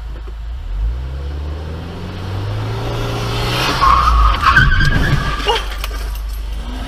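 Car engine accelerating, its pitch rising, then tires squealing loudly in a skid for about two seconds, with a few sharp knocks near the end of the squeal.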